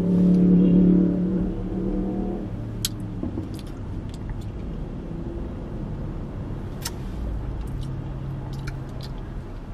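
Low, steady rumble of a car, heard from inside the cabin, while a thick milkshake is sipped through a straw, with a few faint sharp clicks. A steady low hum is loudest for the first two seconds or so.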